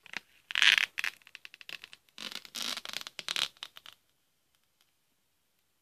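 Clear plastic protective bag crinkling and rustling in several bursts as it is pulled off a router, stopping about four seconds in.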